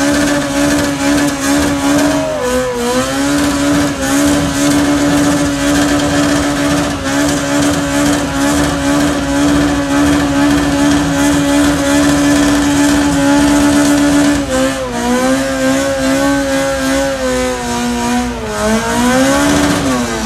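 A car engine held at high revs for a long stretch, with a pitch that stays nearly level. The revs dip briefly a couple of seconds in, drop slightly about three-quarters through, then sag and climb again just before the end.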